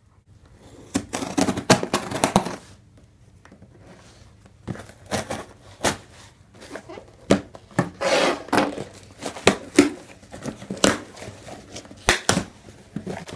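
Knife slitting the packing tape on a cardboard shipping box, then the tape tearing and the cardboard flaps being pulled open: irregular scraping, rustling and sharp clicks.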